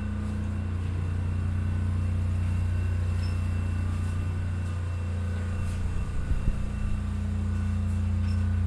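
Steady low machine hum, with a few short knocks or handling sounds about six seconds in.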